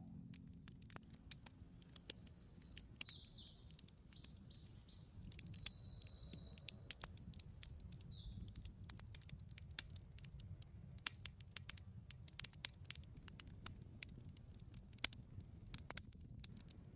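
Campfire crackling, with irregular sharp pops over a low rumble. A small bird twitters in quick rising and falling chirps from about a second in until about eight seconds in.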